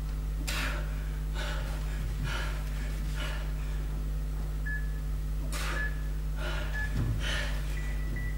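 A woman breathing hard through a bodyweight exercise, short forceful exhales about once a second, over a steady low electrical hum.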